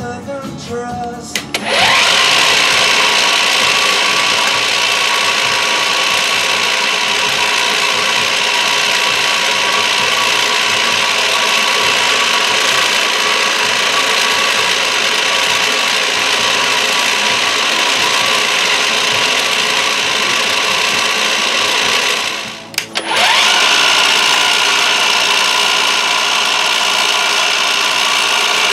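Milling machine's cutter taking a cut across a copper bar: a loud, steady machining noise with a constant whine in it, starting suddenly about two seconds in, dropping out briefly about 23 seconds in, then resuming.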